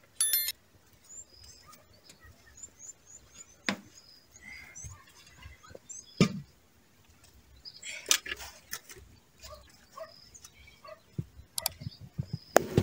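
Scattered knocks and clatter of cooking pots and a lid being handled, the sharpest knock about six seconds in, with small birds twittering in a quick series during the first few seconds.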